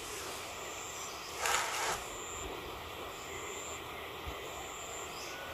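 Steady outdoor background noise with a brief rustle of the bonsai's twigs and leaves being handled, about one and a half seconds in. Faint high-pitched tones come and go.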